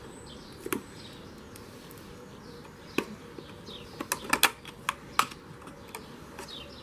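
A clear plastic package being handled and pulled open, giving a series of sharp plastic clicks and snaps, clustered about four to five seconds in.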